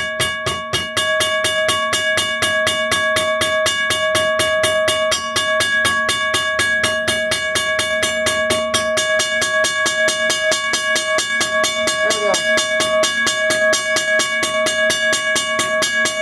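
1982 first-generation Western Cullen Hayes mechanical railroad crossing bell ringing loudly, its motor-driven hammer striking the gong in a rapid, even rhythm, the strokes ringing into one another. Its striking speed has just been adjusted and is running slightly slower than before.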